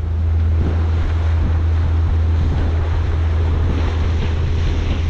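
A small aluminium tinny under way on its outboard motor, with a steady low drone and water rushing past the hull. Wind buffets the microphone throughout.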